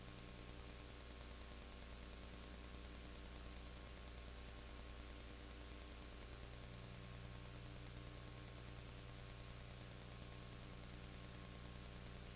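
Faint steady hiss with a low electrical hum, and nothing else: the noise floor of a soundtrack that carries no recorded sound.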